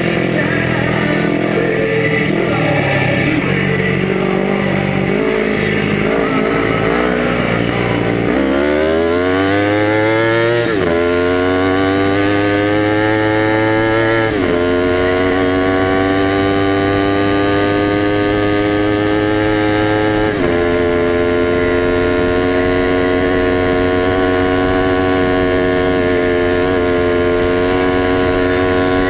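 Kawasaki Ninja 250 motorcycle engine driving a mini buggy runs unevenly at low revs for about eight seconds. The revs then climb in rising pitch and it is shifted up three times, the pitch dropping at each gear change, before it settles into a steady cruise.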